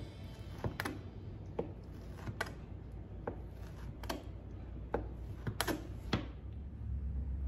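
Santoku knife slicing through a cooked barbecue chicken breast, the blade knocking on a plastic cutting board about ten times at uneven intervals.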